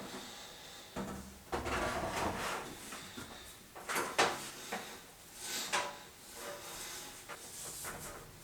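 Irregular knocks, scrapes and bumps of hard parts being handled and fitted, several seconds apart, as a microwave oven is installed.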